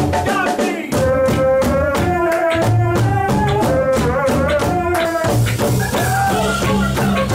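Live jazz jam-session music: a horn plays a bending melody over drums and bass, with a cymbal coming in about five seconds in.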